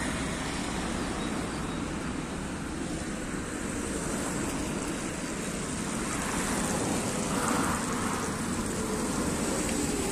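Steady road traffic noise as cars pass along a wide multi-lane road.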